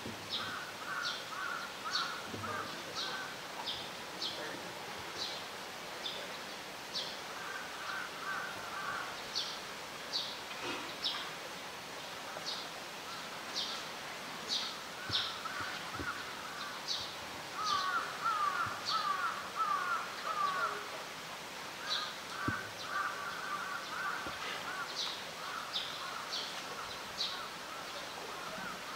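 Birds calling: a long run of short, high chirps, about two a second, over recurring bursts of lower, chattering calls that are loudest a little past the middle.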